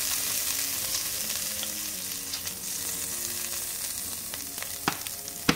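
Hot oil and pork juices sizzling steadily in an enamelled cast-iron casserole after browning pork pieces. Two sharp clicks come near the end, the second louder.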